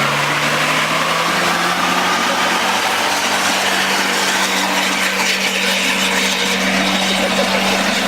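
Car engine running loudly, its pitch rising gently over the first couple of seconds and then held steady at raised revs.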